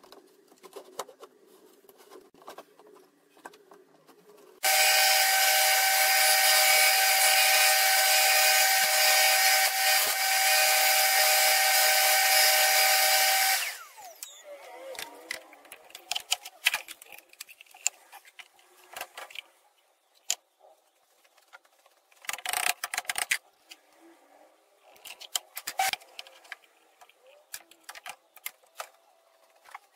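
An electric power tool runs at full speed for about nine seconds, a loud steady whine with hiss that starts and stops abruptly. Around it are scattered knocks and clicks of parts being handled on the saw table, with a short loud burst a few seconds before the end.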